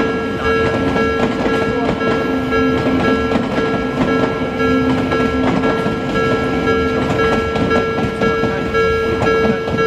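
An Odakyu Line electric train running past over the level crossing, with wheels rumbling and clacking on the rails. A Japanese level-crossing warning bell rings steadily over it.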